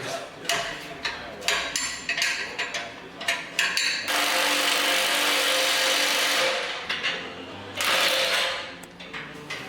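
Metal hand tools clinking and knocking, then an air-powered wrench running on bolts: one steady run of about two and a half seconds and a shorter burst near the end.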